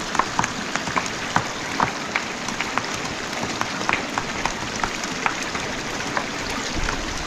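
Shallow river water running over stones, a steady rush with many small splashes and drips.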